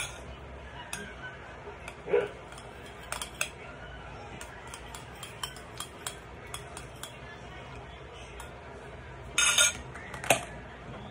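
Metal spoon tapping and clinking against a ceramic bowl and a small plastic cup as seasoning is spooned in, in scattered light taps, with a louder clatter near the end.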